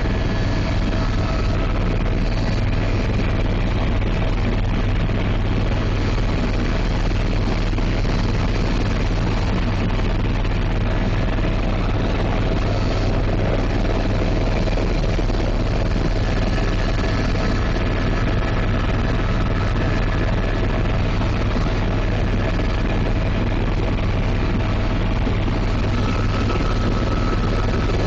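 Helicopter in flight, heard by a passenger on board: a steady, loud rotor and engine drone with a strong low hum that does not change.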